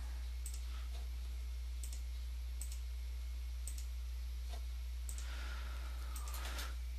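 Computer mouse button clicking, six or seven single clicks about a second apart, over a steady low electrical hum.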